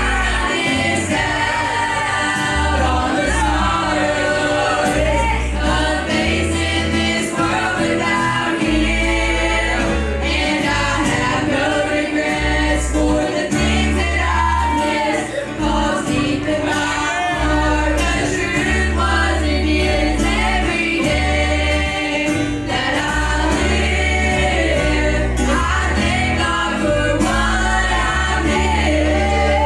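Live gospel song: several voices singing together over a band, with a strong bass line that steps between notes.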